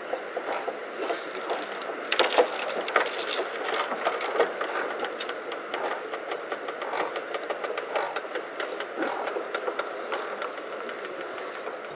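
Shovels scraping into a pile of earth and loose dirt and gravel falling onto a coffin in the grave, a continuous rattling patter with its busiest clatter a couple of seconds in: mourners filling in the grave at a burial.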